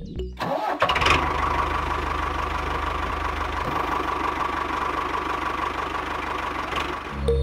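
Miniature toy tractor's small motor running steadily as it pulls its trailer away, with a fine rapid low pulse under a steady whine; it starts about a second in and stops just before the end.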